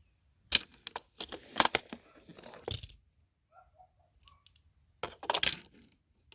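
Small hard toy pieces clattering and knocking together as they are handled, in two bursts of clicks: a longer one starting about half a second in and lasting over two seconds, and a short one about five seconds in.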